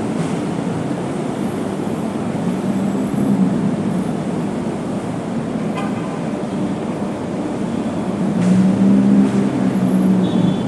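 Road traffic: vehicle engines running steadily, with a short horn toot about six seconds in. A louder engine passes close near the end.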